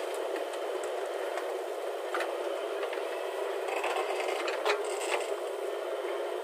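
JCB 3DX backhoe loader running with a steady, even machine noise, and a few sharp clicks and scrapes about two, four and five seconds in.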